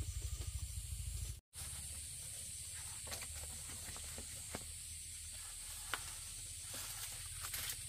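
A pulsing low rumble that cuts off abruptly about a second and a half in, then a steady high hiss with scattered light ticks and taps.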